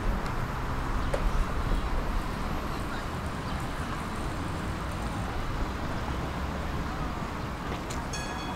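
Tram in motion: a steady rumble of wheels on rails and running gear. A short, high-pitched tone sounds briefly near the end.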